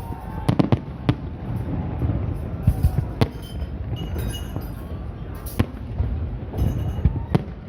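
Fireworks display: aerial shells bursting with sharp bangs, several in quick succession about half a second in and again around three seconds, over a steady rumble and crackle of further bursts.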